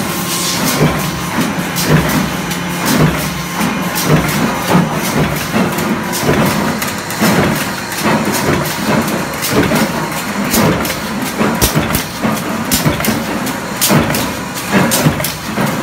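Hinge-making machines running: a steady machine hum with dense, irregular metallic clatter and knocks from the press line.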